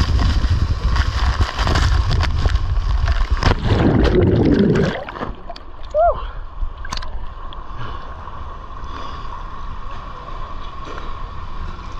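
Water-slide splashdown: loud rushing and spraying water as the rider shoots out of the slide into the pool, dying down about five seconds in to softer sloshing and bubbling of pool water.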